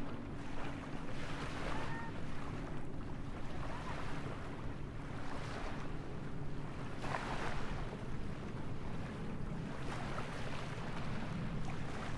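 Small waves washing onto a beach, with wind noise on the microphone and a low steady rumble underneath.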